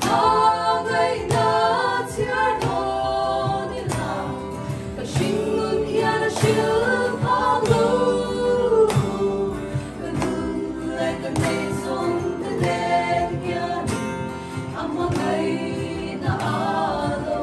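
Four women singing a gospel song together, accompanied by a strummed acoustic guitar.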